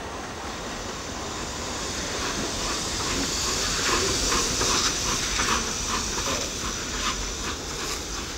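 Steam locomotive sound: a hiss that builds up, with exhaust chuffs at about three a second starting a few seconds in.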